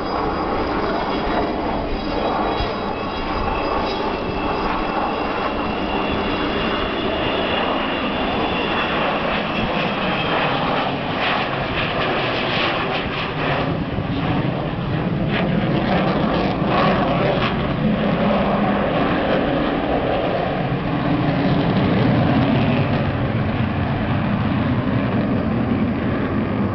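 Avro Vulcan's four Rolls-Royce Olympus turbojets during a flyby. The engines start with high whining tones over a rushing noise, the tones sliding slightly lower. Then comes a rougher rumble that swells to its loudest a few seconds before the end and eases off as the bomber climbs away.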